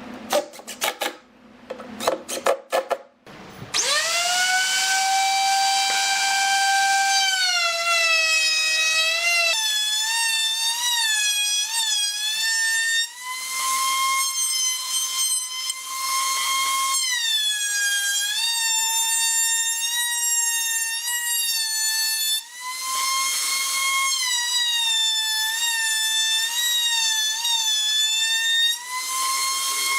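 A few sharp knocks, then a high-speed power tool spins up with a rising whine about four seconds in and runs on at a high pitch. Its pitch sags and wobbles each time it bites into the wood, and a rasping cutting noise rises with each dip.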